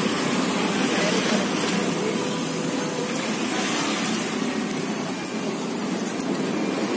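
Steady roadside street noise: passing motorbike and car traffic with faint background voices.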